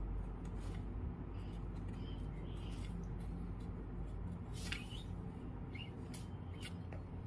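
Macrame cord being handled while tying spiral knots: faint rustling with a few short clicks and brief squeaks of cord rubbing on cord, over a steady low hum.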